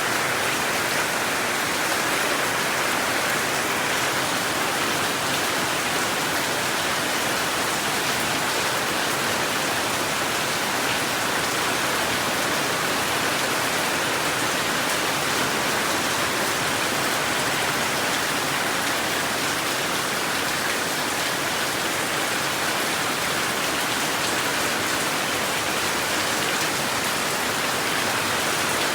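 Rain falling steadily: an even, unbroken hiss of drops, with no thunder.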